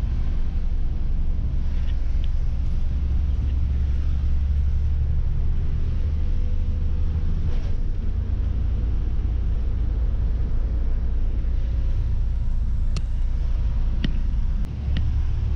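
Steady low rumble of a bus's engine and road noise heard from inside the vehicle, with a few faint clicks and rattles.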